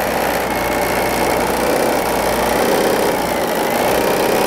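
Bernina B 790 sewing machine running steadily, stitching a hem along the folded edge of a cotton napkin.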